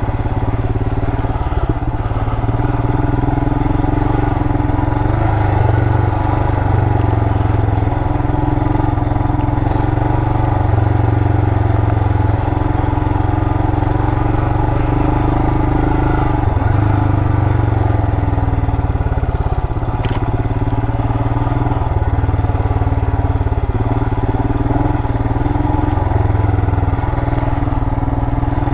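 2020 Royal Enfield Himalayan's 411 cc single-cylinder engine running at low speed as the bike is ridden slowly over a dirt trail, its pitch rising and falling gently with the throttle. There is one sharp click about twenty seconds in.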